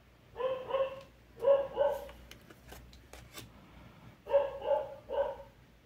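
A dog barking repeatedly in short runs: two barks, another two, then three barks near the end.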